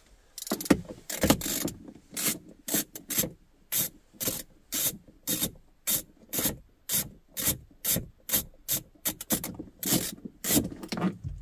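Socket ratchet clicking as it backs out a 10 mm bolt, in short, even back-and-forth strokes of about two a second.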